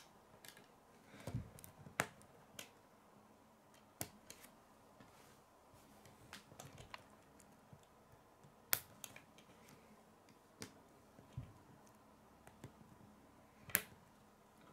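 Plastic K'nex rods and connectors clicking as they are handled and snapped together: a scattered run of small sharp clicks, the loudest about a third of the way in and near the end.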